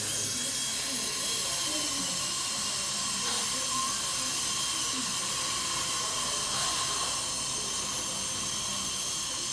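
Steady airy hiss of running dental equipment, such as suction or an air-driven handpiece, with a faint steady tone running through it.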